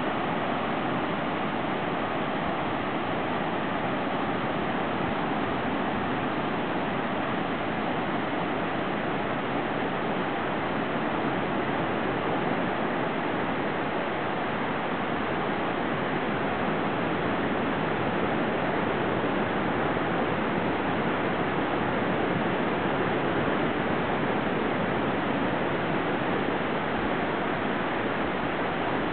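Ocean surf breaking on a sandy beach: a steady rushing noise with no single wave crash standing out.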